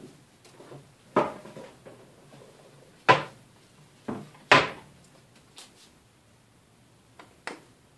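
Kitchen cupboard and bottles being handled: a string of sharp clunks and knocks as a door is worked and bottles are taken out and set down on the counter, the loudest two about three and four and a half seconds in.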